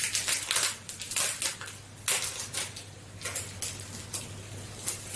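Packaging being handled by hand, rustling and crinkling in quick irregular bursts.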